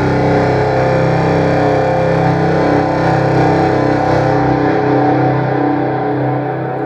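Contrabass clarinet run through an effects pedalboard into a large hall reverb preset on a Walrus R1 reverb pedal, heard through studio speakers: sustained low droning notes in a thick, smeared wash of reverb. The brightness fades about four seconds in, leaving the low drone.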